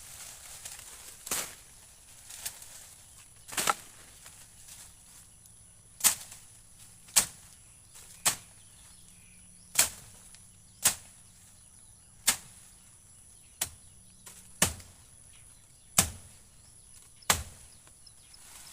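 A blade chopping into wood: about a dozen sharp, evenly spaced strikes, a little over a second apart.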